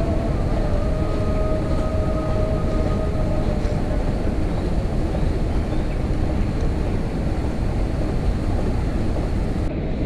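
Steady low rumble of wind buffeting the microphone, with a faint steady machine hum that fades out about three and a half seconds in.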